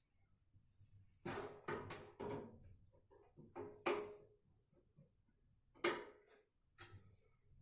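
Several separate metallic clicks and clinks, a few with a short ring, as small screws are handled and started into the motherboard standoffs of a steel PC case.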